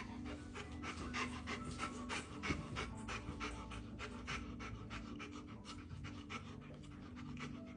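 A dog panting fast, a quick irregular run of short breaths, with a brief low thump about two and a half seconds in.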